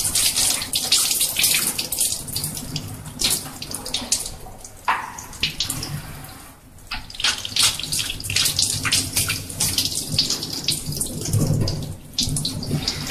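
Water running from a gooseneck tap into a stainless-steel scrub sink and splashing unevenly as soapy hands and forearms are rinsed under it, the rinse that follows a surgical hand scrub. The flow sound drops for a moment about six seconds in, then comes back.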